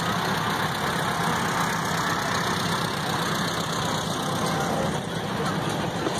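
1953 Allis-Chalmers B tractor's four-cylinder engine running steadily at low speed as it drives slowly past.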